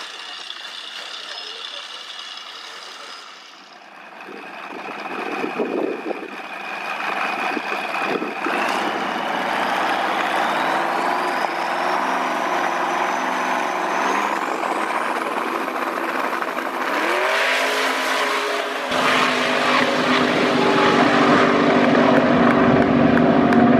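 Twin-turbo V8 Ford Escort drag car making a pass. A thin whistle climbs steadily over several seconds, then the engine revs up and runs hard at full throttle, loudest near the end.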